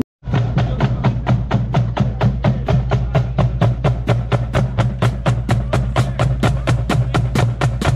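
Marching band percussion tapping a fast, even beat of sharp wooden clicks, about five strikes a second, over a steady low hum. It starts a moment in.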